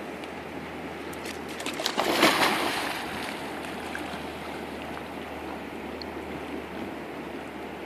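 A boxer–pit bull mix dog splashes into a river about two seconds in, a short flurry of loud splashing that dies away as it starts swimming. A steady rush of flowing river water lies underneath.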